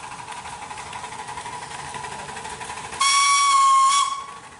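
Miniature steam locomotive sounding its whistle once, a single blast of about a second about three seconds in, over the faint steady beat of its exhaust as it runs past.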